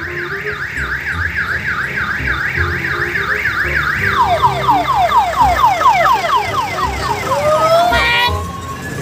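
Electronic multi-tone siren on an odong-odong tourist train. It warbles rapidly up and down about four times a second, then switches around four seconds in to a run of falling whoops about three a second. It ends with a rising tone and a few quick chirps.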